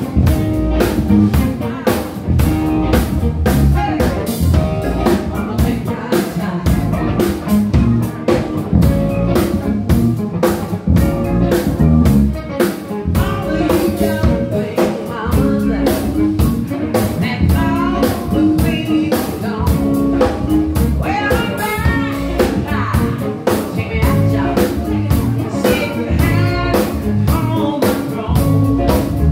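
Live band playing: a drum kit keeping a steady beat, with bass guitar and keyboard, and a singer's voice over it.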